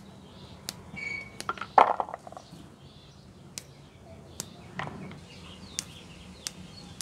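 Lechuguilla flower buds being snapped off the flower stalk by hand and dropped into a plastic bowl, a scattered series of sharp clicks with a louder clatter at about two seconds.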